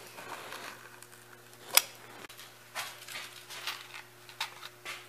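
A brad pusher sets a brad into the wooden stop strip of a screen door with one sharp click about two seconds in. Several lighter clicks and taps follow as a folding rule and a plastic pack of brads are handled.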